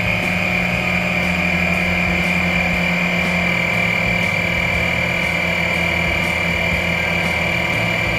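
Onboard 12-volt air compressor running steadily with a high whine over a low hum, filling the truck's suspension airbags toward 20 psi.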